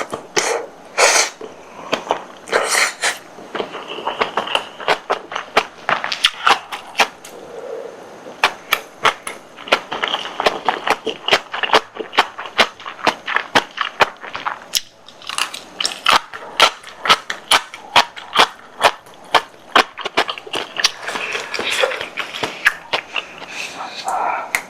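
Close-up mukbang eating sounds: chewing and biting with many sharp, irregular wet clicks and snaps from the mouth and food.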